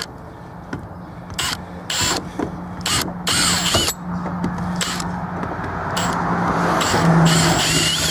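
Power drill running in short bursts, its bit cutting into the plastic hub of a trash can wheel, with clicks and knocks between bursts.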